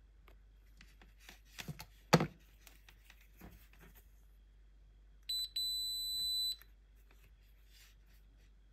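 A few clicks and one sharp tap as multimeter test probes are handled and set on the fuse's terminals. About halfway through comes a digital multimeter's continuity beep, a short high beep and then one held for about a second, signalling a closed circuit through the fuse.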